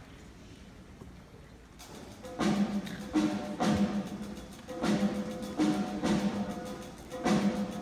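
A school concert band starts playing about two seconds in: regular, loud drum strikes over held low tones, in a repeating pattern. Before that there is only a low murmur.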